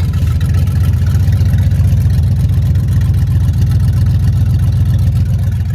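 2005 Dodge Ram's 4.7-litre Magnum V8 running steadily at idle through a loud exhaust with a low rumble, the sound of an exhaust badly in need of a muffler and repair work.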